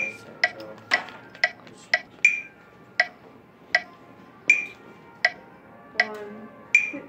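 Metronome clicking: about two clicks a second at first, then from about two seconds in a slower steady beat of a little over one click a second, with every third click accented by a brighter, higher tone.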